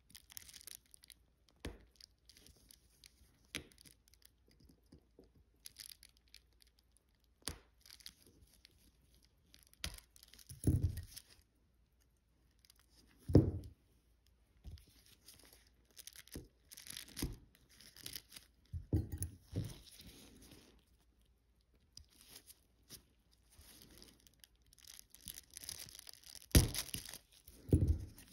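Small clicks, taps and rustling handling noises of watchmaking work on a donor watch movement as its rotor post is taken off, with a few louder knocks of a tool or part set down on the bench.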